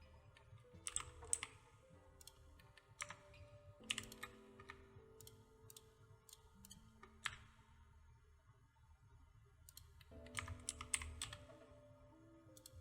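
Computer keyboard keys and mouse clicks tapping in small scattered clusters, with the loudest runs about a second in and again near the end, over soft, quiet background music.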